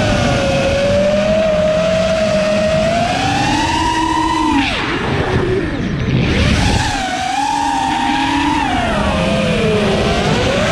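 5-inch FPV quadcopter's brushless motors whining, the pitch rising and falling with throttle. About four and a half seconds in the whine drops sharply under a rush of noise, then climbs back up within a couple of seconds.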